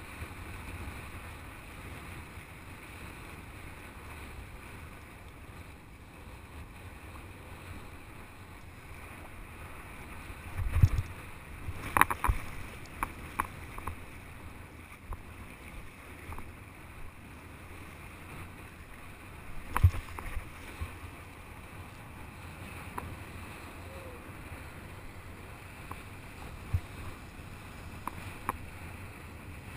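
Steady wind rumble on an action camera's microphone, with scattered sharp knocks and clicks; the loudest come about eleven to twelve seconds in and again near twenty seconds.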